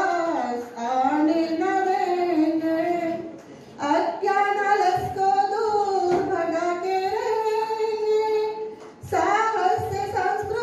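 A woman singing solo into a microphone, holding long notes that slide up and down in pitch, with a short pause for breath about a third of the way in and another near the end.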